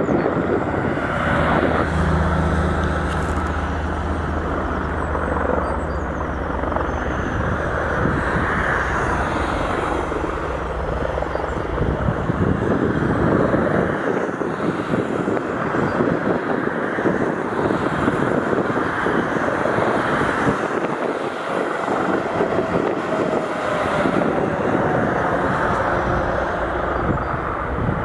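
Helicopter rotors and turbine engines running close by, with strong gusty wind on the microphone. A steady low hum in the first part gives way to rougher, rushing noise.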